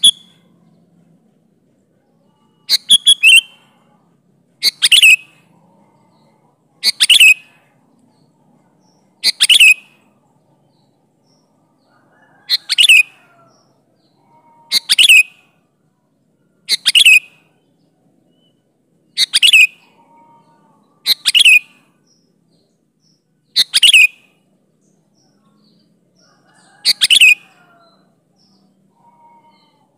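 Sooty-headed bulbul (kutilang) giving short, loud calls about every two seconds, each a quick burst of notes sweeping downward.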